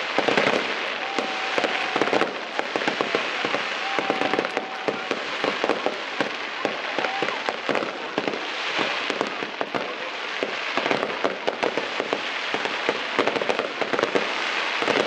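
Aerial fireworks display: shells bursting in quick succession, a dense, unbroken run of bangs and crackles.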